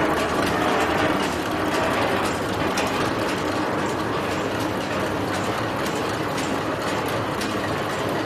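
Peanut-processing machine running with a steady, dense rattle of many small clicks as peanuts pass through it.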